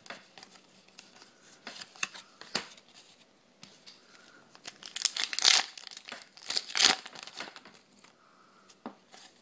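A foil trading-card booster pack being torn open and crinkled, with two louder rips about five and seven seconds in, among softer rustles and flicks of cards being handled.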